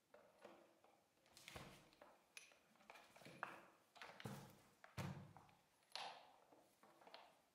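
Faint, scattered knocks and taps from a Powakaddy golf trolley's aluminium frame and parts being handled and turned over by hand, about six small knocks over several seconds.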